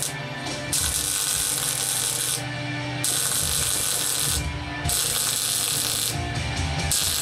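MIG welder arc crackling and sizzling as a tube joint is welded. It comes in runs of one to one and a half seconds, about four of them, with short pauses between. Rock music plays underneath.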